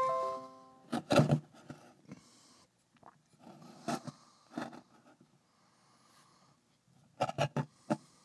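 Windows USB device-connected chime, a few stepped tones as the freshly flashed T-Deck re-enumerates on the USB port. It is followed by clicks and knocks of the handheld being picked up and handled, loudest about a second in and again near the end.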